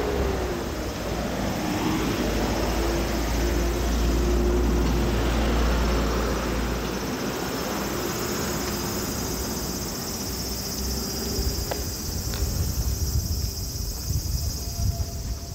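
A vehicle passing, its engine hum falling slowly in pitch and dying away about twelve seconds in, with a heavy low rumble that cuts off about seven seconds in.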